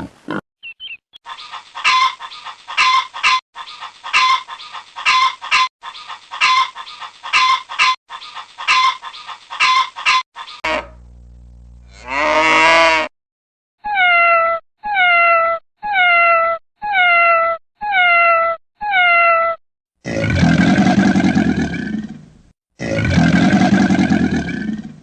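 A string of different animal calls edited one after another. First comes about nine seconds of quick, repeated high calls. After a brief low hum and one rising call there are seven short pitched calls about a second apart, and then three long, deeper calls.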